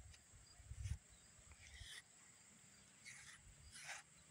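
A dog-grooming brush stroked through a dog's short coat: a few faint, short swishes, with dull bumps about a second in.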